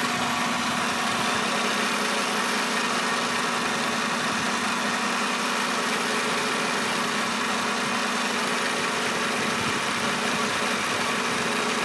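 Rice milling machine running steadily, its electric motor driving the mill through V-belts: a steady hum over an even hiss.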